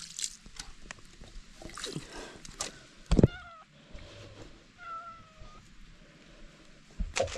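A cat meowing twice: a short meow just after three seconds in, then a longer, steadier one about five seconds in. Water splashes out of steel food bowls being tipped onto grass, and there is a sharp thump just after three seconds.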